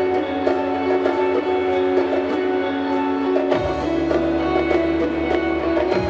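Live instrumental band playing: electric guitar over held notes, with congas and hand percussion ticking along. A new low bass note comes in about three and a half seconds in.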